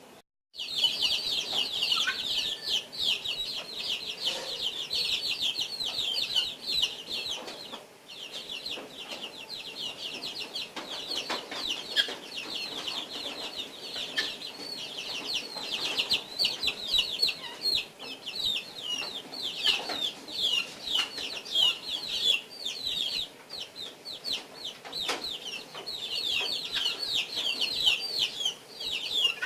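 Guinea fowl calling nonstop in a rapid, high-pitched chatter of many short notes a second, with brief lulls now and then.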